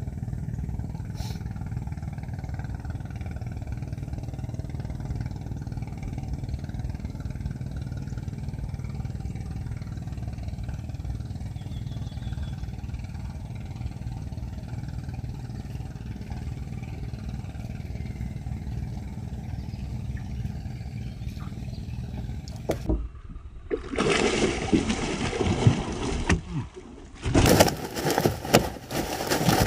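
A small engine running steadily with a low, even drone. About three-quarters of the way through it cuts off, and a louder, uneven, choppy noise follows.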